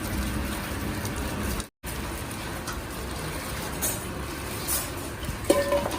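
Steady factory machinery noise, with a brief dropout a little under two seconds in and a few short sharp sounds near the end.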